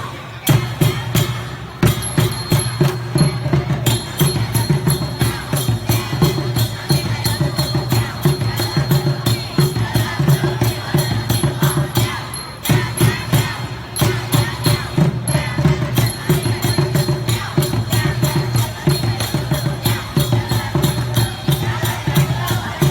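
Music with a fast, steady percussive beat and a crowd of voices beneath it.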